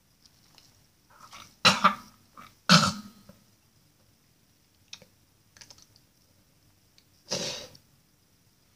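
A man coughing and clearing his throat in short loud bursts, two close together about two seconds in and a longer one near the end: a reaction to a foul-tasting Bean Boozled jelly bean.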